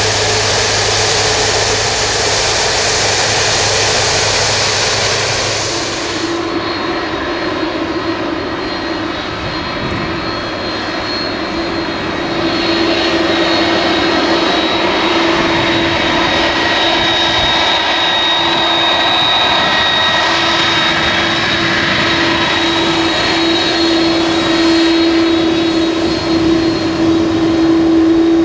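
Airbus A330 twin jet engines running at low taxi power as the airliner rolls off the runway after landing: a steady rush with a held hum and a high whine. The sound changes abruptly about six seconds in, when a second A330 taxis past.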